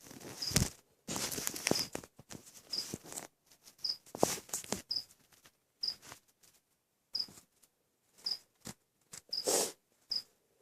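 Plastic shipping bag rustling and crinkling in short, uneven bursts as it is handled open around a snake. A faint, short, high chirp repeats about once a second behind it.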